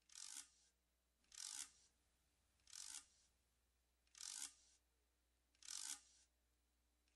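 A clock being wound with a key: five faint, short winding strokes, evenly spaced about every second and a half.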